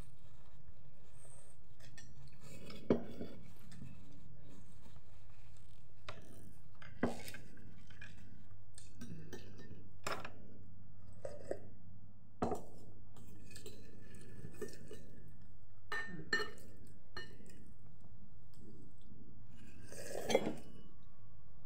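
Metal fork and spoon clinking and scraping against a plate while noodles are eaten, with a sharp clink every few seconds over a steady low hum.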